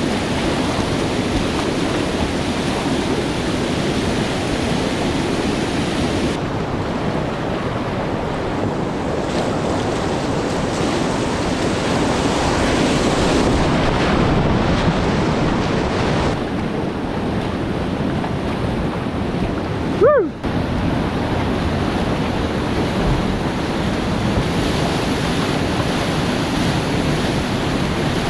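Whitewater rapid rushing and churning around a kayak, a steady loud roar of water close to the microphone. About twenty seconds in, a brief sharp sound falls quickly in pitch above the water noise.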